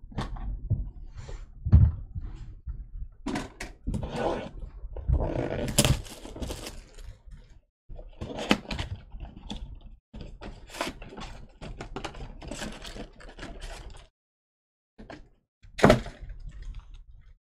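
Trading-card packaging and cards being handled at a table: irregular scraping, rustling and clicking, with a crinkly stretch of wrapper or cardboard noise a few seconds in. Sharp knocks come about two seconds in and near the end.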